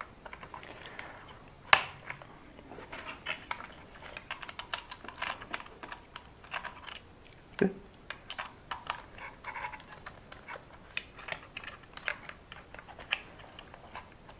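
Light clicking and rattling of small plastic and metal parts of a WLToys 144001 RC buggy being handled as the rear drive shafts are pushed back into place. There is a sharp click about two seconds in and a duller knock about halfway through.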